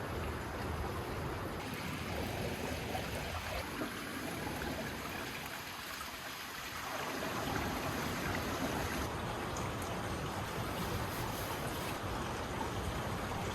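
Steady rush of running water from a partly frozen waterfall, with a low rumble that drops away for a few seconds near the middle.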